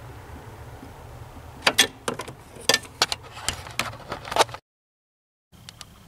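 A run of sharp, irregular clicks and knocks, about ten in under three seconds, from hand tools and metal parts being worked under a car's dashboard at the turn signal switch mounting. About a second before the end, the sound cuts out abruptly.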